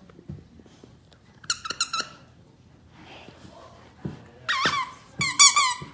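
Squeaker inside a plush lamb toy squeaking as a Bernese Mountain Dog chews on it. A quick run of squeaks comes near two seconds in, then a longer squeak, then another quick run near the end.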